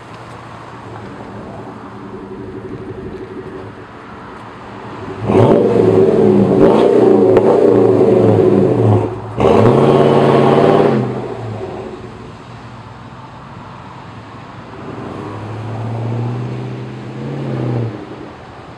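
Toyota Sequoia's 4.7-litre V8 breathing through a Flowmaster 40 Series exhaust, idling with a low rumble, then revved hard twice as it pulls away, its pitch climbing and falling, about five and nine seconds in. It fades as it drives off, and the engine note rises again, more faintly, near the end.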